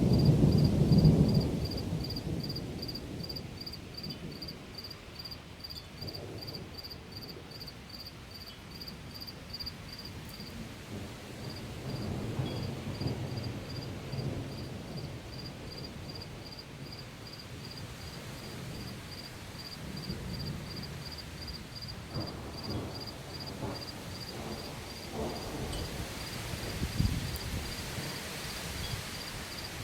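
Thunder rumbling in a storm: a loud low peal at the start that dies away over a couple of seconds, then several more distant rolls, the strongest near the end. Through it an insect chirps steadily, about three short high chirps a second.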